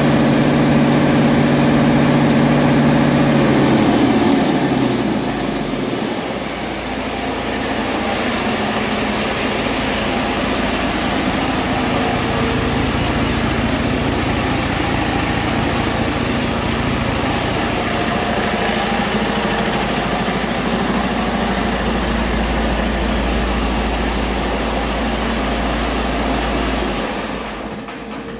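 A 2020 Detroit Diesel DD13 inline-six diesel engine on a test run. For the first few seconds it is held at a raised speed, then about five seconds in it drops back to a steady idle and runs evenly.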